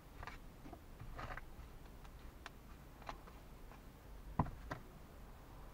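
Small, sharp wooden clicks and snaps as pre-cut thin plywood parts are pressed out of a kit sheet, about six in all, the loudest two close together about four and a half seconds in.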